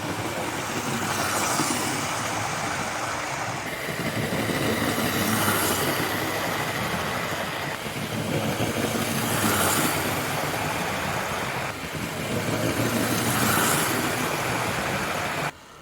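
Hornby OO-scale model steam locomotive and its carriages running around the track: an electric motor whirr with wheels rolling on rails, swelling louder about every four seconds. It cuts off abruptly near the end.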